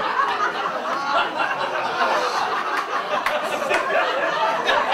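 Comedy club audience laughing and reacting loudly to a joke they found in bad taste, many voices at once, with a few sharp claps.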